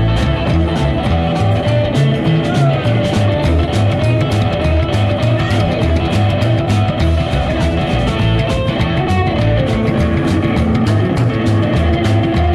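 Live rock and roll band playing, with an upright bass, an electric archtop guitar and an acoustic guitar over a small drum kit keeping a steady beat.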